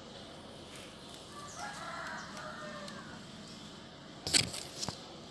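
A rooster crowing once, faint, a single drawn-out call of about a second and a half. About four seconds in come two short, loud rustling knocks, which are the loudest sound here.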